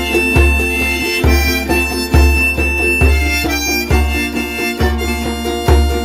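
Ukulele ensemble music with a steady bass beat about once a second under a held lead melody.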